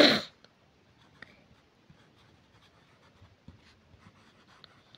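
Pencil writing on a paper workbook page: faint scratching strokes and light taps. A brief loud burst of noise comes right at the start.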